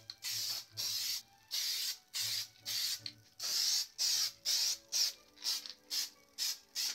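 Aerosol can of spray adhesive hissing in about a dozen short sprays of roughly half a second each, the bursts coming shorter and quicker toward the end.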